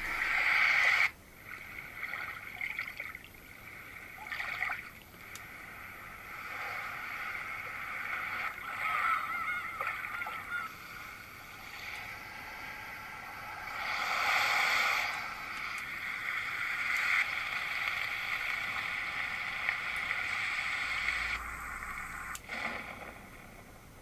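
Roffie N600 white noise machine playing its built-in nature sound presets through its small speaker: a thin, water-like rushing and gurgling noise that swells and fades, loudest about 14 seconds in. The sound changes abruptly about a second in and again near the end as presets are switched.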